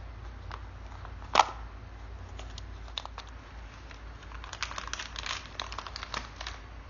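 Small toy blind-box packaging being torn open and crinkled by hand, with one sharp snap about a second and a half in and a busy run of crackling near the end.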